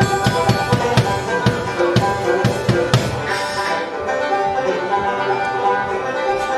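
Acoustic skiffle band playing, with banjo, double bass and drums. Regular drum strokes carry the rhythm for about the first three seconds, then drop away and leave the strings.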